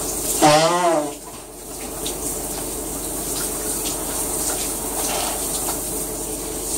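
Shower running with a steady hiss of water. About half a second in, a short wavering voice-like call rises over it.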